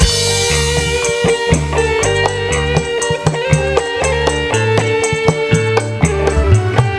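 Band music with a drum kit, heavy bass and a held melody line, played loud through a large PA sound system during a sound check.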